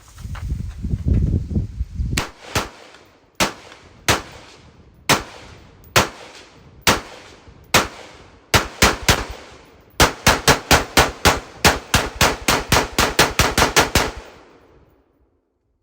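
Gunshots from a firearm: a low rumble for the first two seconds, then single shots about a second apart, then a fast string of about five shots a second for around four seconds before the firing stops.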